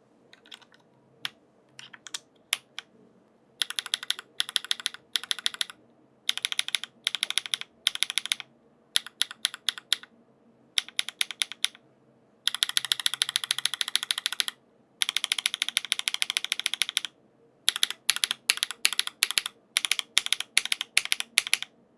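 Mechanical keyboard with Feker White Marble linear switches on an aluminium plate being typed on: a few single keystrokes at first, then bursts of fast typing, with two long continuous runs of keystrokes in the middle.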